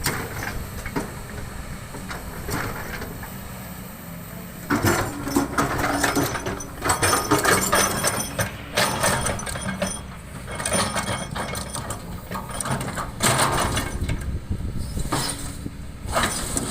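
Excavator's diesel engine running steadily, with loud irregular bursts of stones scraping and clattering in the bucket from about five seconds in.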